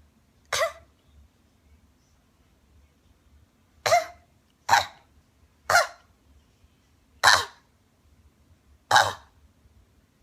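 A person coughing in single short coughs, six in all: one near the start, then five more spaced about a second apart from about four seconds in.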